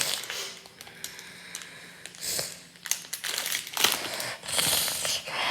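Plastic crinkling and rustling with irregular light clicks and taps as plastic science-kit parts are handled and fitted together.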